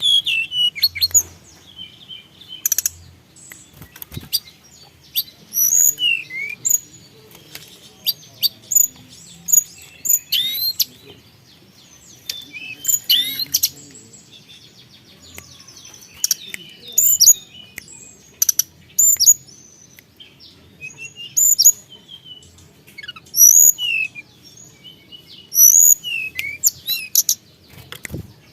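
Tledekan gunung songbird singing steadily: short, high whistled notes and sharp sweeping chirps, repeated in quick phrases every second or two.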